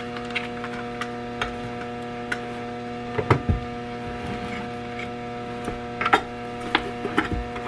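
Steady electrical mains hum, with a few sharp knocks and clicks from handling, the loudest about three seconds in and about six seconds in.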